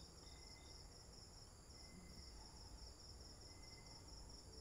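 Faint, high insect chirping, pulsing evenly several times a second.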